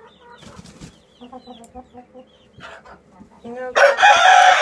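Chickens clucking softly, then near the end a rooster crows loudly, one long held call.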